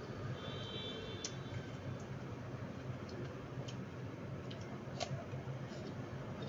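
Raw apple being chewed and bitten: scattered short crisp crunches and mouth clicks, the sharpest about five seconds in, over a steady low hum.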